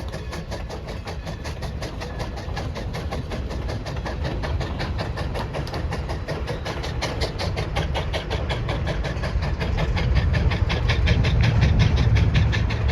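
Santa Maria Valley 205 steam locomotive running by with its train, tender first, with a rapid, even beat over a low rumble that grows louder over the last few seconds as it draws closer.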